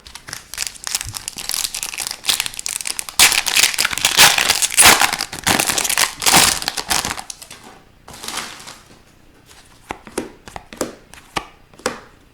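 Foil wrapper of an Upper Deck hockey card pack crinkling and tearing as it is handled and crumpled, loudest in the middle. It is followed by a few short, soft clicks in the last few seconds.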